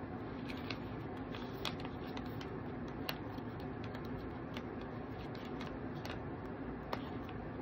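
Plastic pickle pouch crinkling and ticking in the hands as it is worked open, with a few sharper crackles standing out over a steady low hum.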